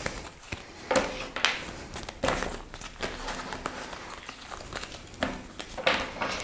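A deck of tarot cards being shuffled by hand: irregular soft papery slaps and rustles as the cards are pushed through and squared.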